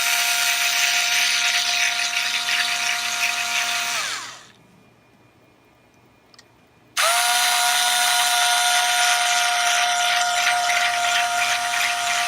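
Small high-speed electric rotary tool whining steadily while it marks pilot holes in a plastic antenna housing. It runs, winds down and stops about four seconds in, then starts up again about seven seconds in and runs on steadily.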